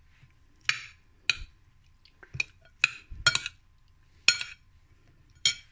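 Metal spoon clinking against a ceramic plate while stirring chopped mushrooms and onion: about seven short, irregular clinks with a brief ring.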